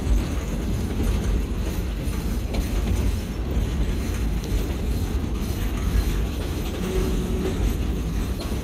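Passenger train rolling along the track: a steady low rumble of the railcar's wheels on the rails, with no distinct clacks or squeals standing out.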